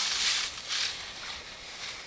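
Skis sliding over groomed snow: a few swishes of scraping noise, the loudest in the first half second and a shorter one just after.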